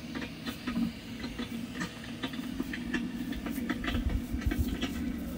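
Motorised Halloween props, a bubble fogger and a bubbling cauldron, running: a steady low motor hum with many irregular clicks and pops over it.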